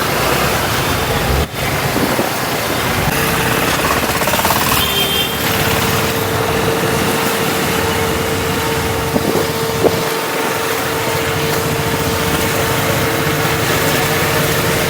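Road and engine noise of a moving vehicle in traffic, steady throughout, with a thin steady tone coming in about three seconds in.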